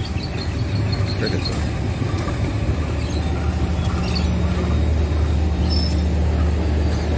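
Passenger train coaches rolling past close by: a steady rumble of steel wheels on the rails. A steady low hum joins in about three seconds in.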